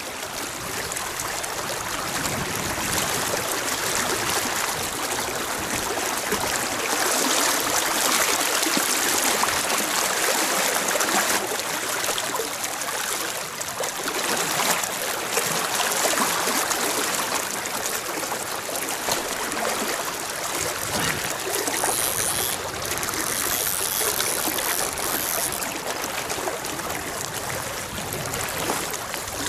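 Shallow river water rushing and trickling steadily.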